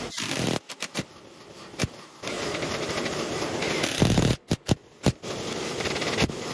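DeWalt cordless impact driver driving long screws into a wooden frame, in several short runs with a few single clicks between them.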